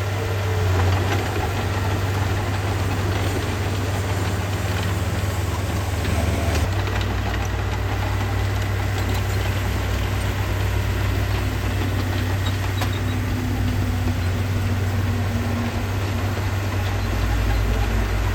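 Heavy-machinery diesel engine running steadily with a low drone, its low note shifting about a third of the way in and again near the end.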